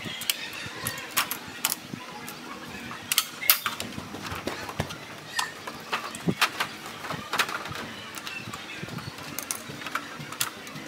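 Irregular sharp clicks and crackles of mylar drum-head film and pliers being handled while the film is pulled over the hoop.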